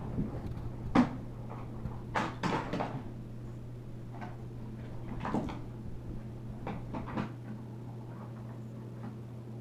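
Scattered knocks and clatters of a toy car transporter, die-cast toy cars and a child moving about on a hardwood floor, the sharpest knock about a second in.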